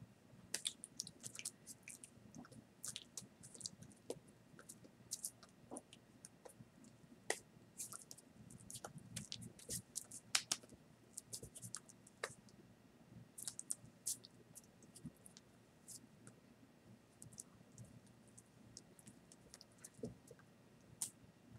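Faint, irregular clicks and small taps from a person signing in American Sign Language close to the microphone, over a low room hum.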